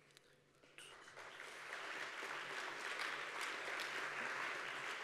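Audience applauding: after a near-quiet moment, clapping starts about a second in, builds quickly and holds steady.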